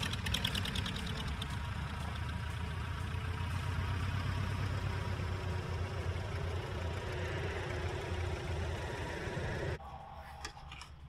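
A light aircraft's piston engine running steadily, then cutting off suddenly near the end.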